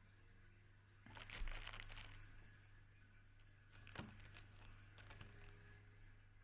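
Packaging being handled: a burst of crinkling about a second in, then a few sharp clicks and rustles around four to five seconds.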